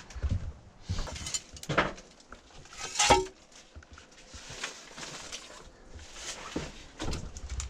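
Irregular clinks and knocks of cans and other debris being handled and shifted, with one louder knock about three seconds in.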